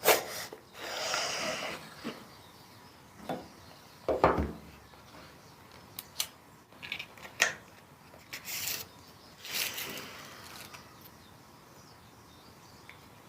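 Hands handling the phone's retail packaging: rustling, sharp clicks and a dull thump about four seconds in.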